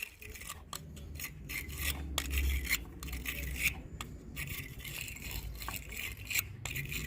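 Wire battery-terminal cleaning brush scrubbing corrosion off a battery terminal: a run of uneven scratchy scraping strokes.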